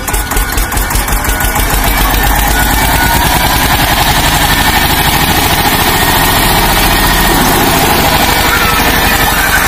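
Eicher 242 tractor's single-cylinder diesel engine labouring as it pulls a trolley heavily loaded with wet soil through mud. Its separate firing beats are heard at first; about two seconds in the sound steadies and gets a little louder.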